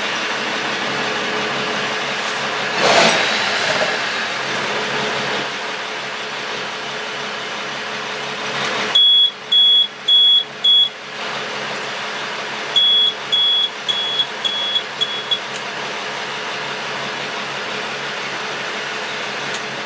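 Truck's Cummins diesel engine idling steadily, heard from inside the cab. A newly wired dashboard warning buzzer, extremely loud, sounds in two runs of short high beeps about nine and thirteen seconds in: four beeps, then six shorter ones.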